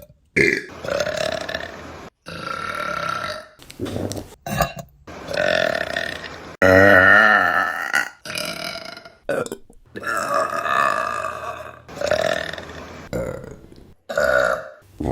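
A quick run of about a dozen loud belches, cut together from separate clips, each breaking off abruptly into the next. The loudest, about seven seconds in, is a long burp with a wavering pitch.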